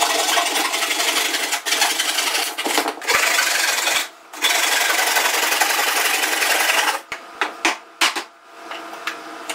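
Hand saw cutting through pallet wood: a dense, continuous rasping with a few brief pauses. Near the end it gives way to a few separate sharp knocks.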